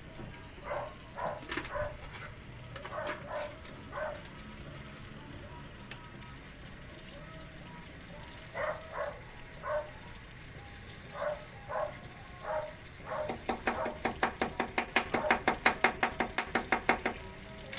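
An animal's short pitched yelping calls, singly and in pairs and clusters, then a fast run of about five calls a second near the end that is the loudest part, over a faint steady hiss.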